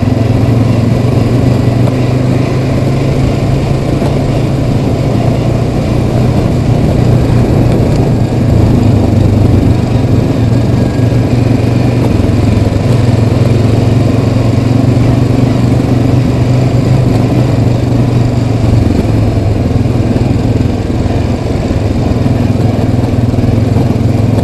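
Yamaha Kodiak 700 ATV's single-cylinder four-stroke engine running steadily as the quad drives along a dirt trail, rising a little about eight seconds in.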